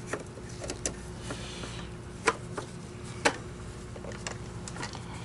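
Screws being driven into a Hoover commercial upright vacuum's housing with a power screwdriver: a brief small-motor whir about a second in, then a few sharp clicks as parts and the driver knock against the plastic.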